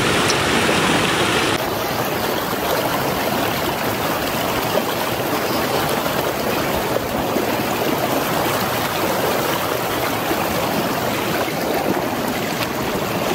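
River water rushing steadily over rocks. About a second and a half in, the bright hiss drops away suddenly and a softer, duller rush carries on.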